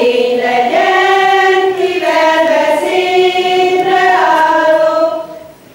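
A group of women singing a Hungarian Sárköz karikázó (circle-dance song) without instruments: one long phrase of held notes that ends about five seconds in.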